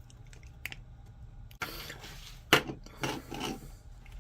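A small machine screw being driven into a 3D-printed plastic part: scraping and rubbing as the screw turns, with small clicks and one sharper knock about two and a half seconds in.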